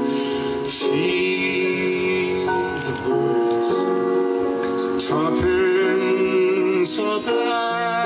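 Grand piano playing a slow tune in long held chords that change every second or two, with a sung voice wavering on held notes in places.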